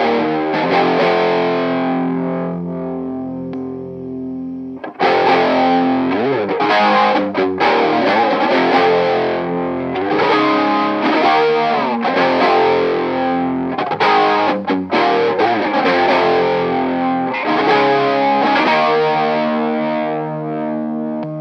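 Electric guitar playing overdriven chords through a Nobels CHO mini chorus/flanger pedal; the ringing chords waver with the modulation. Chords are struck, left to sustain, and restruck every couple of seconds.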